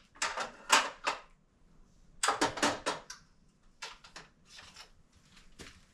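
Sharp clicks and clacks from hands working in a Cutler-Hammer CH circuit breaker panel, in several quick clusters, the loudest near the start and about two seconds in.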